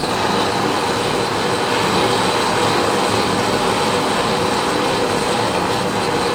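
Gas torch flame burning with a loud, steady, even hiss as it heats a diesel air heater's evaporator element to burn off coked fuel-additive deposits. The noise starts abruptly and holds steady.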